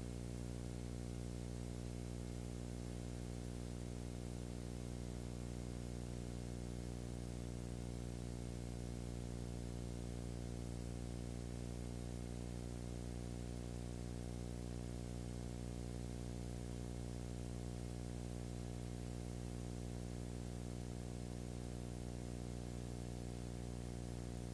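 Steady electrical hum with a stack of evenly spaced overtones under a constant layer of hiss, unchanging throughout. It is noise on the soundtrack rather than any sound from the scene.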